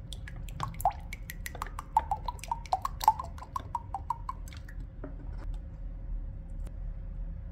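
Cooking oil glugging out of a plastic bottle into a ceramic mug: a quick run of gurgling plops, about five a second, for roughly four seconds, then it goes quieter.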